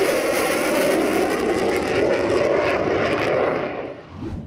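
F-16 fighter jet in afterburner, a loud steady rush of jet-engine noise that fades away near the end.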